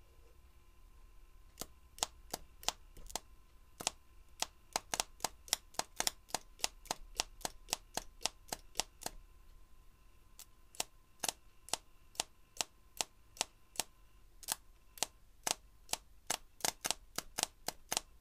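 A 12-volt ignition coil firing a spark plug as its primary wire is tapped on and off by hand: sparks snapping across the plug gap in many sharp, irregular snaps, a few a second, with short pauses. The snaps show that the coil is making spark.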